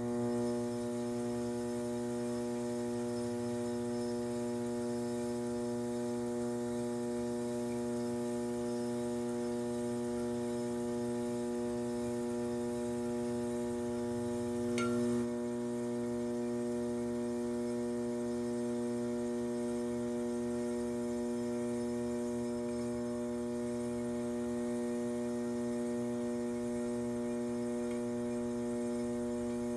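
Electric potter's wheel motor humming steadily while the wheel spins, with one brief click about halfway through.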